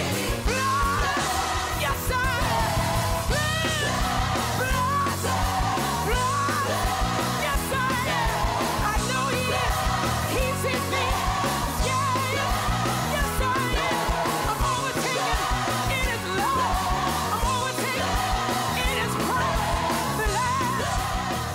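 Background music: a song with singing over a band with a steady beat.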